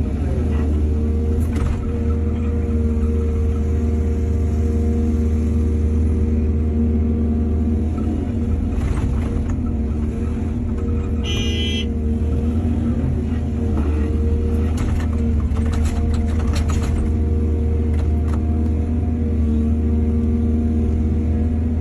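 Heavy diesel engine of an excavator running steadily under load, with a few brief scraping or clanking noises. A short, high-pitched whine comes about eleven seconds in.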